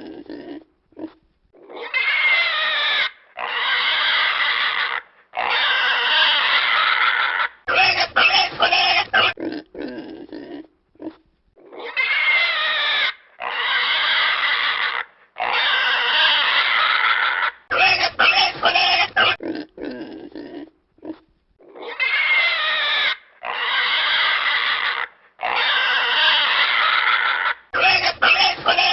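Domestic pig squealing: three long, loud squeals in a row, then a quick run of short grunts and oinks. The same sequence repeats about every ten seconds.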